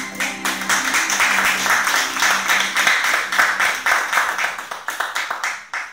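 A small audience clapping as the final acoustic guitar chord dies away underneath. The applause thins out and stops near the end.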